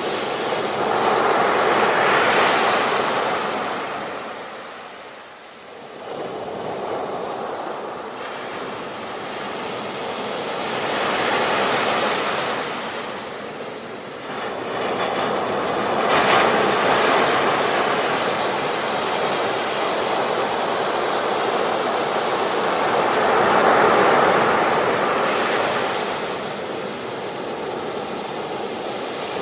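Ocean waves breaking and washing up on a beach, a hiss that swells and fades in surges every several seconds, with a lull about five seconds in.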